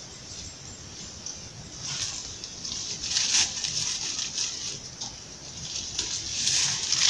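Dry palm fronds and leaf litter rustling and crackling in uneven bursts as they are pushed aside and trodden. It starts about two seconds in.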